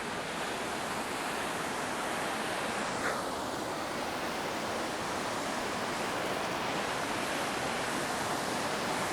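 A waterfall rushing steadily, an even wash of falling water.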